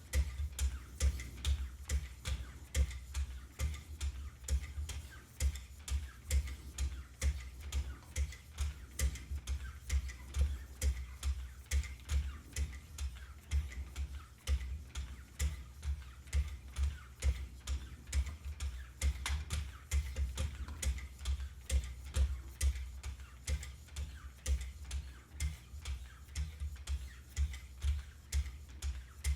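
Wicked Edge sharpener's 30-micron lapping film on glass platens stroked edge-trailing along a CPM-M4 steel knife blade, about two strokes a second. Each stroke is a short scrape or tick with a dull knock under it.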